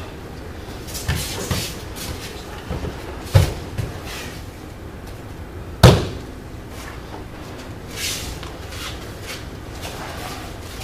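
Aikido practitioners working on a padded dojo mat: soft thuds of steps and falls, and about six seconds in a sharp, loud impact as a body is taken down onto the mat into a pin.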